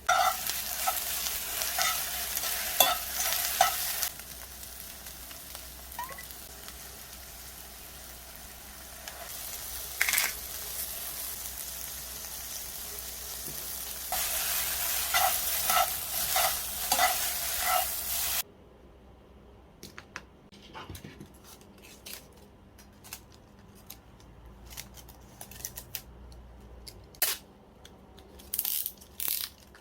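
Egg fried noodles stir-frying in a hot pan: steady sizzling with the spatula scraping and knocking against the pan, louder at the start and again later on. A little past halfway it cuts off suddenly to a much quieter stretch of scattered small clicks and taps.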